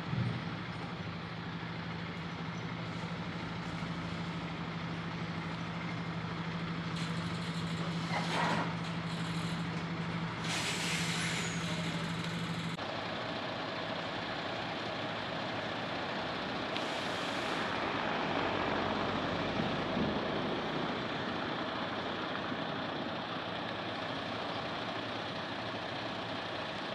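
Diesel engine of a MAN semi-truck towing a trailer-mounted fairground ride, running steadily, with several sharp hisses of its air brakes.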